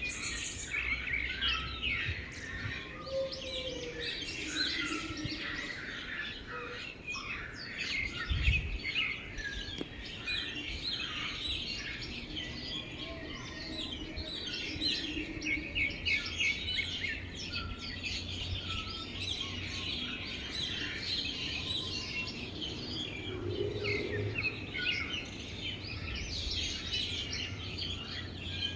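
Many small birds chirping and calling at once, a dense, continuous chatter of short high notes.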